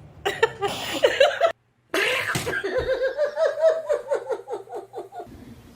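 A person laughing in quick repeated bursts, broken by a short silent gap.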